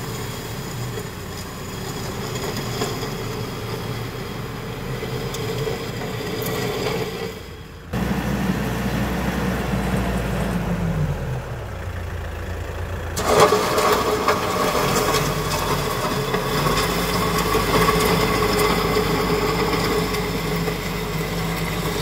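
Kioti RX7320 tractor's diesel engine running as the tractor works a gravel driveway with its loader bucket down, with gravel scraping under the bucket. The engine note dips briefly around the middle, and the sound grows abruptly louder a little past halfway as the tractor comes close.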